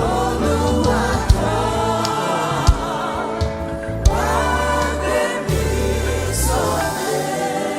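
Live gospel worship music: a choir and congregation singing a sustained, slow line over a band with a steady bass, and a drum hit about every one and a half seconds.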